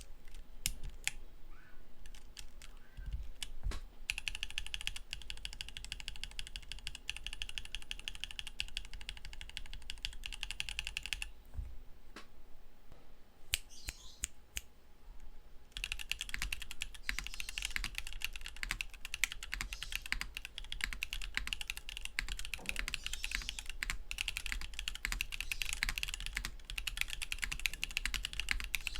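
Mechanical keyboard with Akko Botany switches being typed on. A few single key presses come first, then a fast run of typing, a pause with scattered presses about halfway through, and another long fast run.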